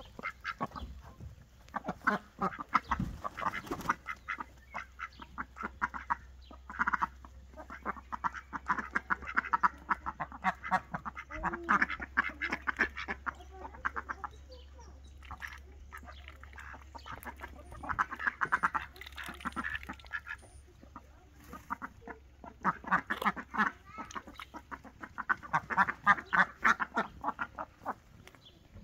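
Small flock of domestic ducks, Indian Runners among them, quacking in quick chattering runs of calls that come and go.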